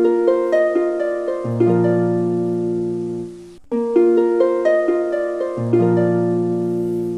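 Background music: a light plucked-string tune, harp-like, of short repeated notes over a held low chord, looping twice with a brief break between.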